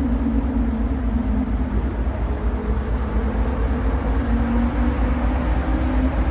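Cruise ship under way: a steady low rumble with a droning hum.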